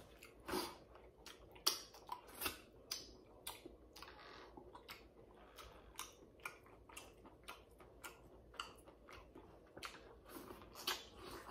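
Close-up eating sounds: boiled crawfish being pulled apart and peeled by hand, with chewing and lip smacking. The sound is an irregular run of sharp clicks, cracks and wet smacks, several a second, a few of them louder.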